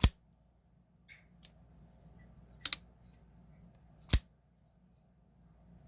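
Folding pocketknife being flicked open and shut: sharp metallic snaps of the blade locking and closing, one at the start, a quick double snap near the middle and another a second and a half later, with a few faint ticks of handling in between.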